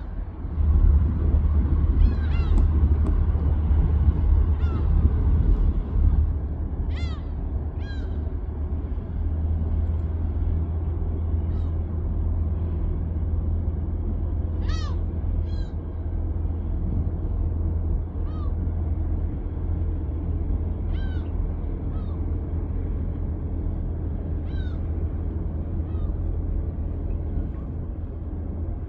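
Gulls giving short mewing calls now and then, about a dozen scattered through, over a steady low rumble.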